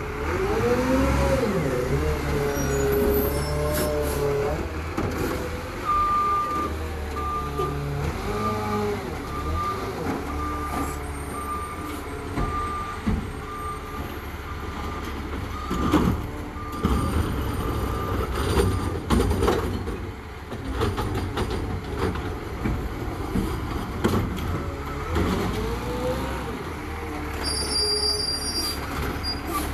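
Garbage truck at work: its engine revs up and down, and a reversing beeper sounds at a steady pace, a bit faster than once a second, for about ten seconds. Several sharp clanks come in the second half.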